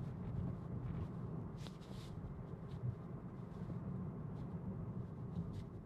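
Steady low road and tyre noise inside the cabin of a 2024 Tesla Model 3 rolling along a wet street, with a brief hiss about two seconds in.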